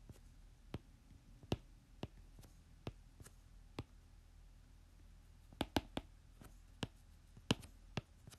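Irregular sharp clicks of a pen tip striking the writing surface as words are handwritten, about a dozen in all and bunched more closely in the second half, over a faint low hum.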